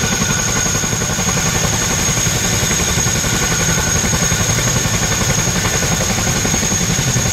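Boeing CH-47 Chinook tandem-rotor helicopter running on the ground with its rotors turning: a fast, steady beat of the rotor blades with a steady high whine over it.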